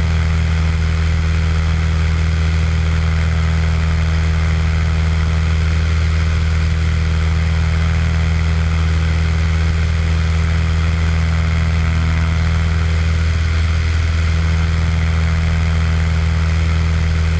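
Cessna 182's piston engine and propeller running steadily in flight, a constant low drone with an even rush of airflow over it.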